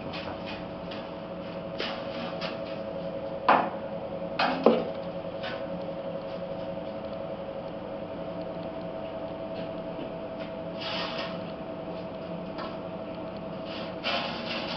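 Steady machine hum with a couple of fixed tones. Two sharp knocks come about three and a half and four and a half seconds in, with a few light clicks and brief rubbing noises later.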